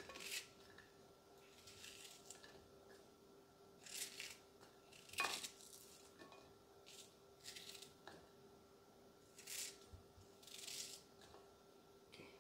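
Faint, crisp cuts of a kitchen knife slicing through a peeled onion held in the hand, one stroke every second or two at an uneven pace.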